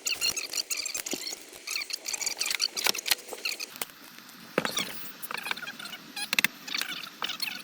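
Hand work on caravan wiring: a dense run of small clicks, knocks and rattles with quick high squeaks, as tools, cables and fittings are handled. The sharpest knocks come about four and a half and six and a half seconds in.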